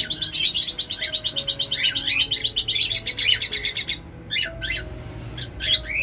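Pet birds chirping in an aviary: a fast, even run of high chirps, about eight a second, that stops about four seconds in, then separate short calls.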